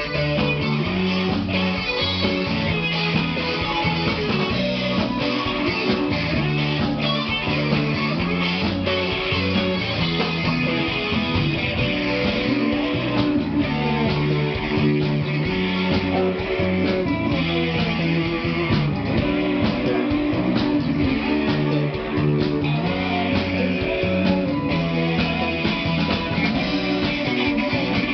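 A band playing guitar-driven rock music live, loud and continuous, with electric guitar.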